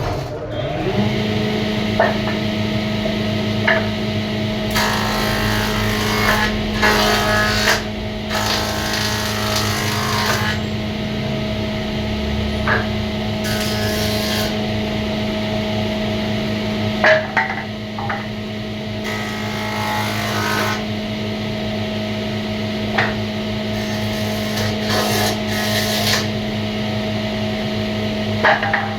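An electric woodworking machine starts up about a second in and runs with a steady hum. Several times, for a few seconds at a stretch, wood is cut or fed through it with a louder rushing noise. A few sharp knocks are heard between the passes.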